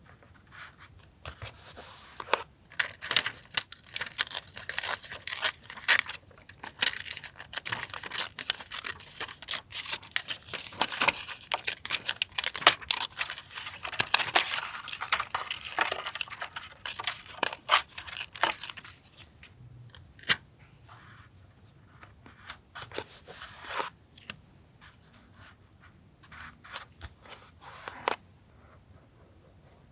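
Close-up paper sounds of collage work: dense crackling and rustling of paper being handled and torn for most of the first twenty seconds, then a few scattered taps and rustles.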